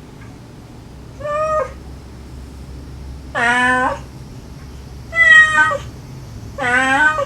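A mother cat and her kittens meowing: four separate meows about one and a half seconds apart, each under a second long.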